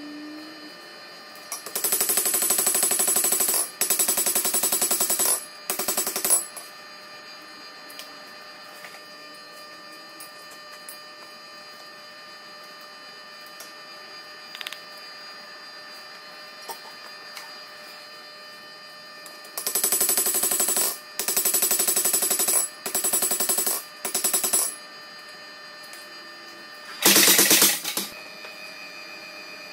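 Power hammer striking hot steel in fast bursts of blows, each burst a second or so long, with ringing metal: three bursts early on, four more in a row later, and one last burst near the end.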